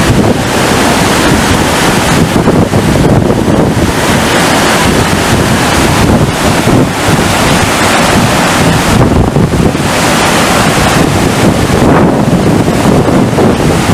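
Loud, steady rush of water from a FlowRider surf simulator, its pumped sheet of water pouring up the wave surface, with wind buffeting the microphone.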